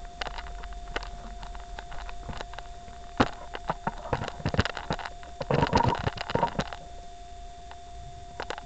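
Handling noise from a camera being set up on a tripod: a string of clicks, knocks and clatter, busiest with a burst of rattling about five and a half to seven seconds in, over a steady faint electrical hum.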